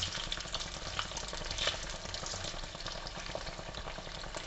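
Boiled potato chunks sizzling in hot oil in a non-stick kadai, stirred with a slotted spatula, with a few light clicks and knocks as the spatula turns them in the pan.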